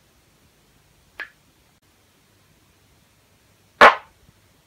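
A short, sharp fart about four seconds in, after a faint click about a second in.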